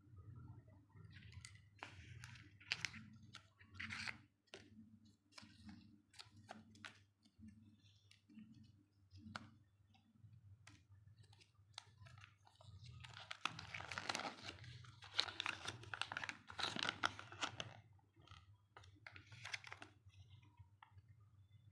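Crinkling, crunching and clicking of a Kinder Joy egg being handled: its wrapper and plastic capsule crackle in irregular bursts, busiest about two-thirds of the way through, with scattered sharp clicks between.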